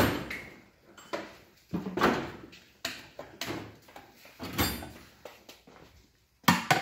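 Steel drawers of a rolling tool chest sliding and banging shut: a string of metallic knocks and rattles about once a second, loudest at the start and again near the end.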